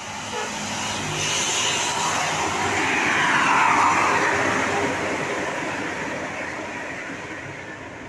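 A road vehicle passing close by: engine and tyre noise swells to a peak about three and a half seconds in, dropping slightly in pitch as it goes past, then fades away.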